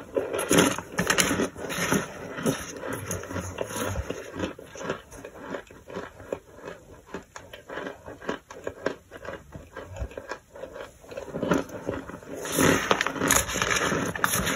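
A plastic spoon scooping and crushing clumps of toasted starch in a glass dish: dense crackling and scraping crunches, busiest about a second in and again near the end.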